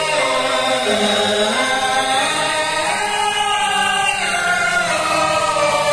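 Many voices singing a Hindu devotional aarti hymn together, holding long notes that bend slowly in pitch.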